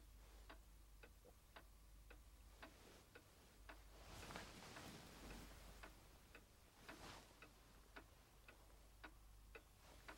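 Faint, steady clock-like ticking, about two ticks a second. A soft rush of noise rises about four seconds in and again briefly around seven seconds.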